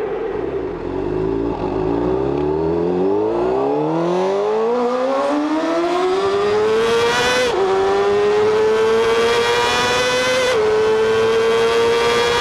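Honda CBR600RR inline-four engine at full throttle, its pitch climbing steadily through the revs with sharp dips at two upshifts, about seven and a half and ten and a half seconds in. It echoes in a road tunnel.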